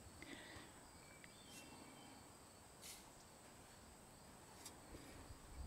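Near silence: faint outdoor background with a steady high insect buzz and a few faint, brief ticks.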